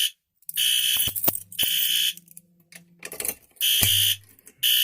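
System Sensor P2RL fire alarm horn-strobe, set to low volume and taped over, sounding the temporal code-3 evacuation pattern: bursts of a shrill horn tone with a longer pause between groups, signalling that the system is in alarm after the pull station was pulled. A few clicks and knocks sound between the blasts.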